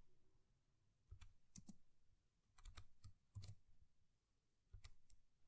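Faint keystrokes on a computer keyboard: a few short, scattered bursts of key clicks with quiet pauses between them.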